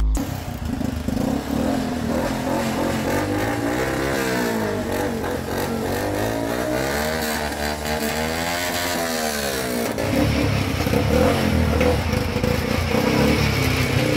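The mini truck's Honda 200 cc engine running and being revved, its pitch rising and falling several times, then running more steadily for the last few seconds.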